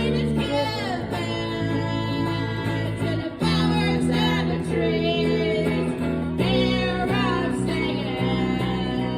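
Live blues song played on guitar with sung vocals; the chords change about every three seconds under the wavering vocal line.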